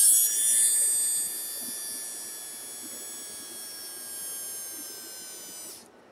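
A new brushed DC drill motor is run free, out of the drill, from a bench power supply, giving a high electric whine. It is loudest for about the first second, then drops in level and sags slightly in pitch, and it cuts off just before the end. It draws heavily enough that the power supply is not happy with it.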